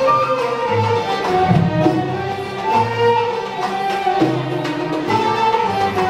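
Arab music ensemble playing a melody on violins, oud and qanun over a bass line.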